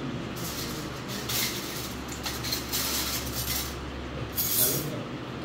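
Plates, bowls and spoons clinking as many people eat and dishes are handed round, with several sharper clinks, the loudest about four and a half seconds in.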